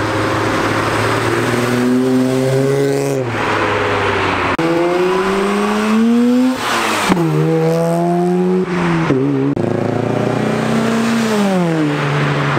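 Cars accelerating away one after another with their engines revving hard. The pitch climbs and then drops with each gear change, and the sound cuts abruptly from one car to the next a few times.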